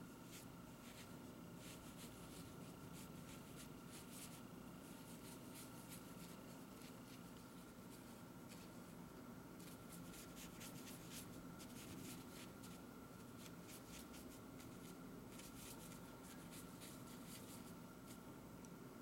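Faint scratchy strokes of a Chinese ink brush on semi-sized Xuan rice paper, coming in clusters of quick short dabs and scribbles, over a steady faint hum.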